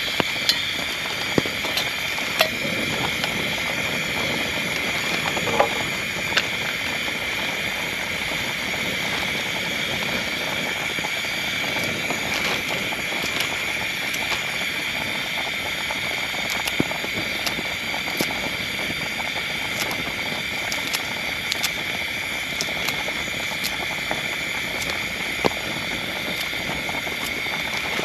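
Steady heavy rain hissing, with scattered louder drops striking as sharp ticks.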